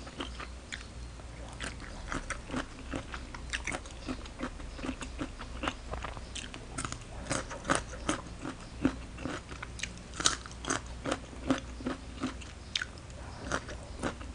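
Close-up mouth sounds of a person chewing crunchy shredded green mango salad: irregular wet crunches, several a second, that grow somewhat louder about halfway through.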